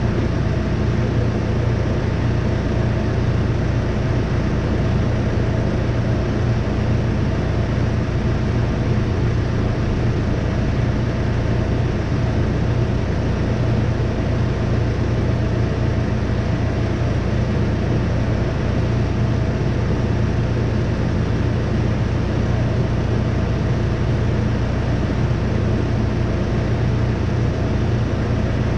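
Tractor-driven Farmhand 840 grinder-mixer running: a steady, loud mechanical drone with a strong low hum.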